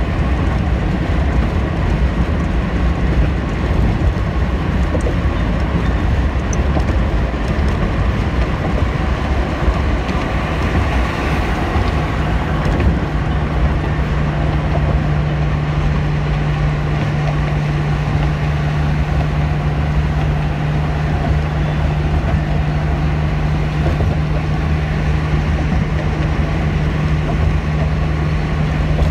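Steady road and engine noise heard inside a car cruising at highway speed, its tyres running on the concrete bridge deck. A steady low hum comes in about twelve seconds in.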